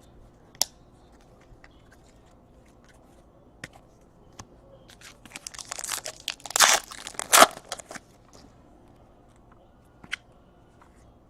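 Plastic trading-card pack wrapper crinkling and being torn open, a few seconds of crackling with two louder rips about two-thirds of the way through, after some scattered soft clicks of cards being handled.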